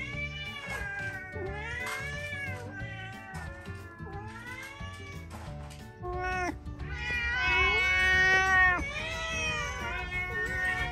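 Several domestic cats meowing over one another, a run of rising-and-falling calls, with the loudest, longest calls about two-thirds of the way through.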